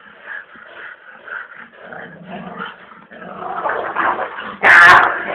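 Two shepherd-dog puppies, an Azerbaijani gurdbasar and an alabai, growling as they tussle and play-fight. The noise builds over the last couple of seconds to a sudden loud burst near the end.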